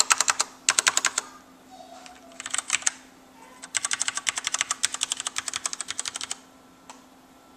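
Filco Majestouch 2 mechanical keyboard with Cherry MX Black switches, keys pressed quickly and bottoming out with a clack on each stroke. There are four runs of rapid keystrokes, the last and longest about 2.5 s, ending about six seconds in.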